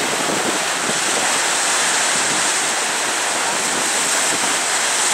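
Steady rush of wind and sea water, an even hiss that does not change, with no distinct events.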